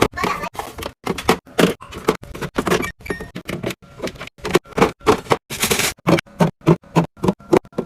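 Rapid run of clacks, knocks and taps from food containers, bottles and lids being handled and set down in a refrigerator during a restock. Some strikes ring briefly, and the taps come faster, about three a second, in the second half.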